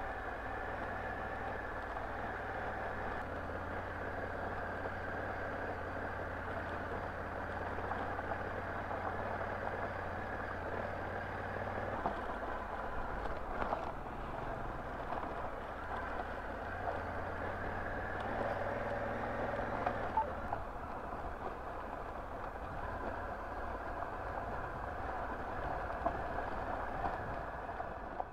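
Honda Africa Twin motorcycle's parallel-twin engine running on the road, its low note stepping up or down a few times, under a steady rush of wind and road noise.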